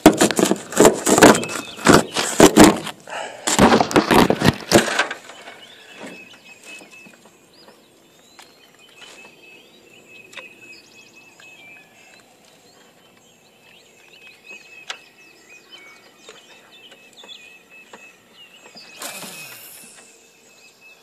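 Loud rustling and knocking of the camera being handled and moved for about the first five seconds. Then a quiet outdoor background of birds chirping and a faint steady insect trill, with a short whoosh falling in pitch about nineteen seconds in.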